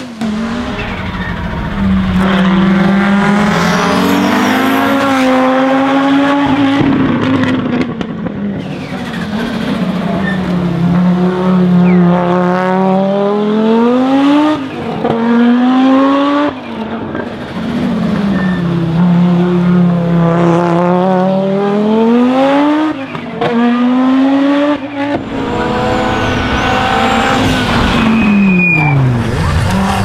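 Audi Quattro rally cars' turbocharged inline five-cylinder engines at full throttle. The engine note climbs through the revs again and again and drops back at each gear change or lift, with short breaks between the climbs. Near the end the note falls sharply.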